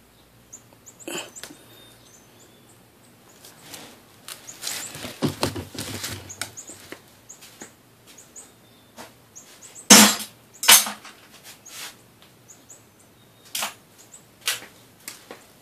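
Scattered clicks and knocks of scrap metal parts being handled and taken apart, with a run of rattling clinks around the middle and one loud knock about ten seconds in.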